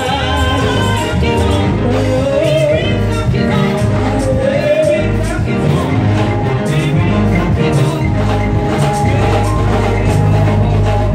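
Live gospel music: voices singing a melody over a steady bass line and a regular percussion beat.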